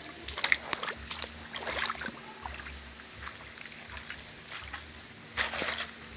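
Someone wading through a shallow creek: water sloshing and splashing with each step, with scattered small clicks and a louder splash about five and a half seconds in.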